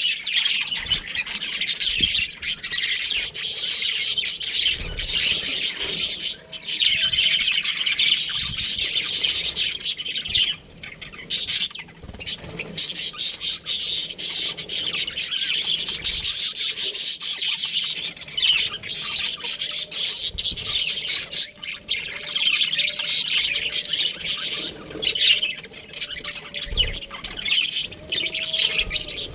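A flock of budgerigars chirping and chattering continuously, many birds at once in a dense, high-pitched twitter with a few brief lulls.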